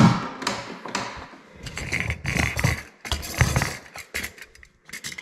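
Snowmobile fuel filler cap being twisted off its plastic tank, the cap's threads grinding in a run of short scraping clicks.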